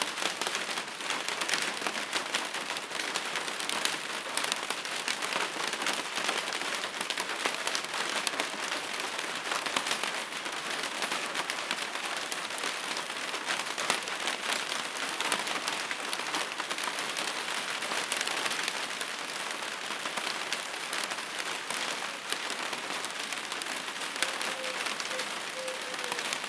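Steady rain falling, a dense even hiss made of many small drop hits.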